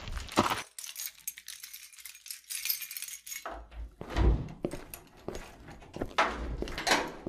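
Keys jangling for about three seconds, then heavy footsteps and thuds from about halfway through.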